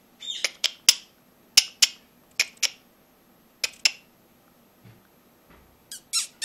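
Short sharp clicks, mostly in pairs about a quarter second apart, made by a person to catch a fox terrier puppy's attention; near the end one comes with a short falling squeak.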